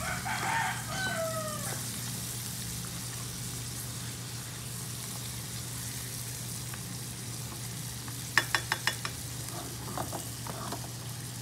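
Ground meat, sliced hotdogs and mushrooms sizzling in a stainless steel wok while a spatula stirs them. About eight seconds in, a quick run of about five sharp taps, with a few fainter ones a little later.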